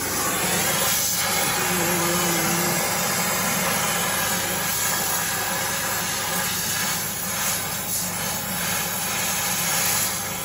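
Oxy-fuel torch flame hissing steadily as it heats a steel horseshoe to fuse Drill Tec tungsten-carbide traction onto it.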